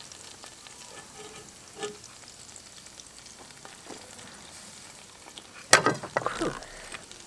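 Faint steady sizzle of hot juices and fat from a prime rib roast in a cast iron Dutch oven as it is lifted out, with one sudden clatter about two-thirds of the way through as the metal utensils knock while the roast goes onto the plate.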